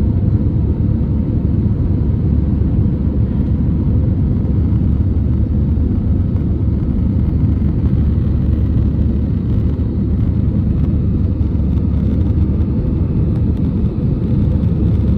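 Steady low rumble of a jet airliner's engines and rushing air, heard inside the cabin during the climb after takeoff.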